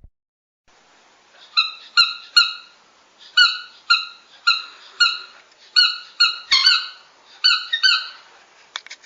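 Dog's squeaky toy squeezed over and over: about a dozen short, high squeaks at roughly two a second, unevenly spaced, over a faint hiss, with a few clicks near the end.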